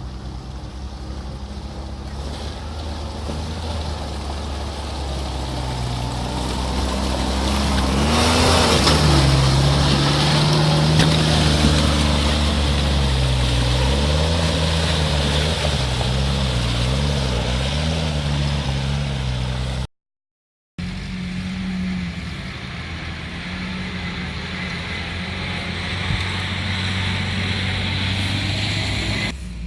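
Off-road 4x4 engine running and revving, its pitch rising and falling as it works, with a rushing noise over it for much of the time. The sound drops out completely for a moment about twenty seconds in.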